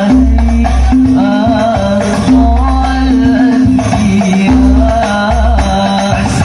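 Banjari ensemble performing a sholawat: a singer's wavering, ornamented melody over frame drums, with deep bass-drum strokes beating a steady pattern.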